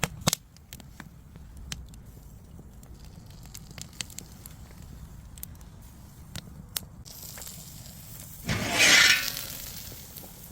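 Firewood crackling under a cast-iron cauldron, with scattered sharp pops and snaps over a low steady background. A louder rushing noise lasting about a second comes near the end.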